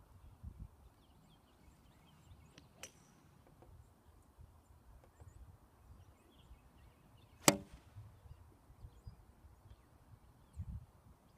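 A golf iron striking a ball on a range swing: one sharp, crisp crack about seven and a half seconds in, ringing briefly.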